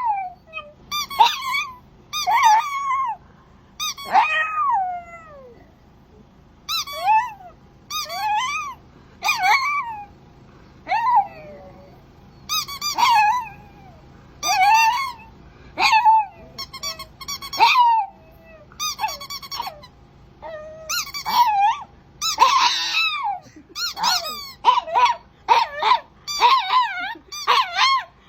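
Small dog or puppy whining and yipping in short, high-pitched cries that bend in pitch, repeated every second or so and coming faster and closer together in the last several seconds.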